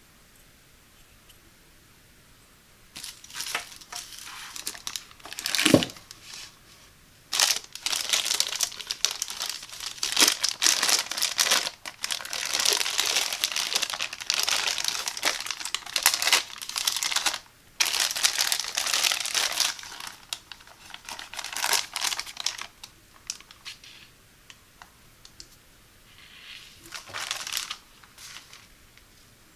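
Thin plastic bag crinkling and rustling in bursts, starting about three seconds in, as a chrome shower filter is unwrapped from it. A single sharp knock comes about six seconds in.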